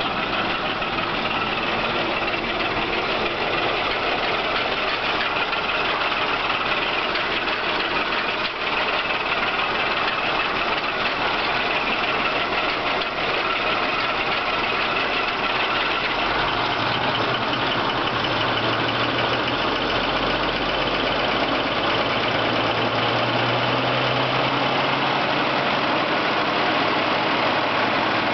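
1953 American LaFrance J series V12 fire-engine engine, twin Zenith carburettors, idling steadily after a fresh top-end overhaul with a full valve job. A deeper low note comes in over the second half.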